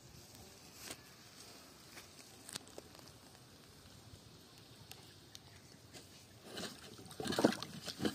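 Faint, scattered clicks as a cast net is handled, then water splashing and sloshing for the last second and a half as the net is worked in the pond beside the platform.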